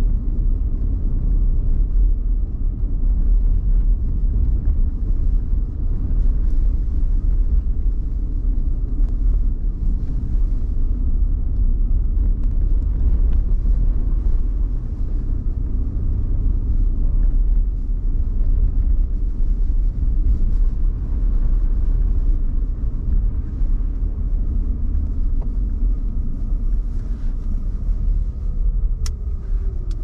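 Car driving on a snowy city street: a steady low rumble of engine and road noise. Near the end a whine falls in pitch and there is one sharp click.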